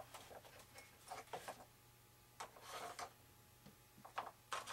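Faint, irregular clicks and rustles of small parts and wires being handled, in several short clusters.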